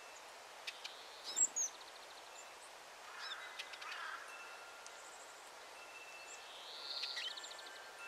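Small songbirds calling around a seed feeder: short high chirps, thin steady whistles and quick trills of rapid notes, with one sharp knock about a second and a half in.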